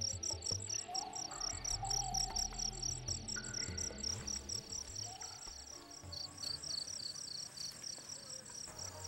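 Crickets chirping in a rapid, even pulse.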